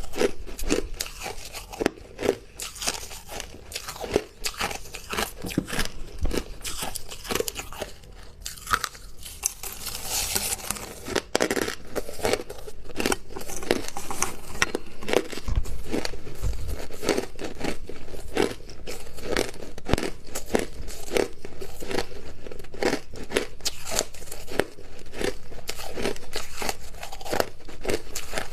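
Hard crushed ice being bitten and chewed close to the microphone: a dense, irregular run of sharp crunches and cracks.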